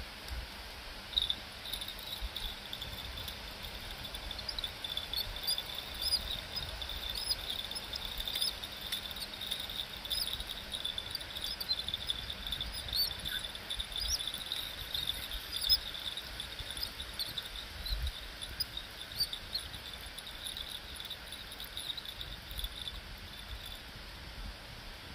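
Insect, cricket-like, singing a steady high-pitched trill with small chirps on top. It starts about a second in and stops shortly before the end. Low wind rumble on the microphone underneath.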